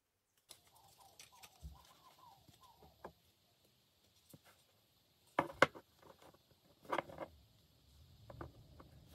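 Sharp clicks and taps from a small homemade battery case with metal terminal clips being handled. The loudest come about halfway through and again a second and a half later. A faint wavering chirp runs through the first few seconds.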